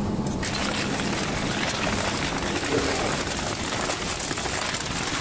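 Industrial twin-shaft shredder running, its toothed cutters turning under a large round steel plate: a steady scraping, rattling noise without heavy crunches.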